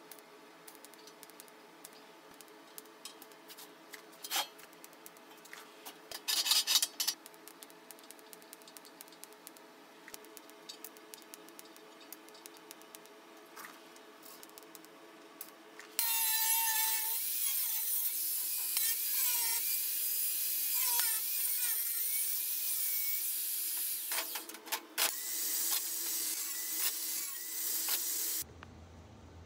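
Faint steady hum with a few clicks, then a power tool starts abruptly, loud with a wavering pitch, and runs for about twelve seconds before cutting off.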